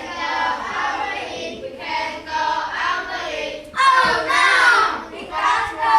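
A group of children's voices chanting a story line together in unison, in a sing-song way.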